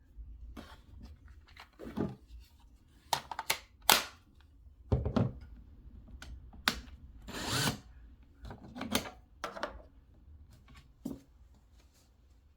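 Handling noises from the hammer drill kit: a series of irregular sharp plastic clicks and knocks, with a brief rustle a little past the middle.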